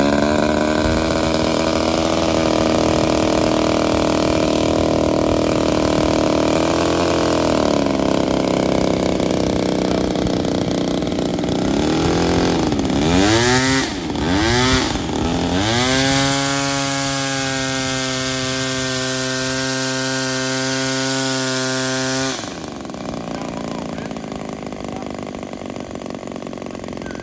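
Front two-stroke gasoline engine of an RC Cessna 337 model running just after starting. Its speed sags and recovers about seven seconds in, and it is blipped up and down several times between about twelve and fifteen seconds. It then holds a higher steady speed until it drops back suddenly about twenty-two seconds in.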